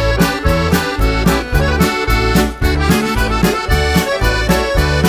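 Accordion music: a polka played with a steady beat of bass notes alternating with chords.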